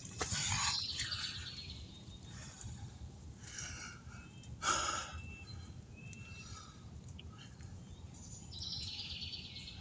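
Outdoor background with a few short, faint high chirps, typical of birds, and several brief noisy handling sounds. The loudest comes about five seconds in.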